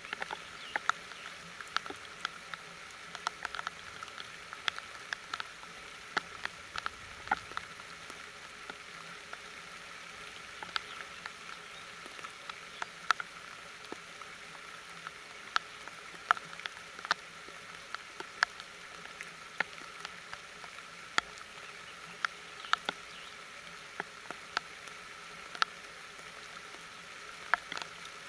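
Steady rain falling, an even hiss of patter. Sharp drops tap irregularly on nearby surfaces, a few each second.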